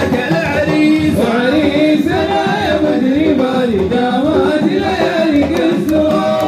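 Arabic wedding song playing loudly: singing over a steady drum beat.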